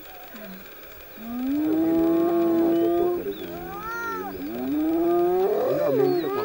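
Drawn-out animal calls, several overlapping, that rise and bend in pitch. One long call is held from about a second in, arching calls follow, and another rising call comes near the end.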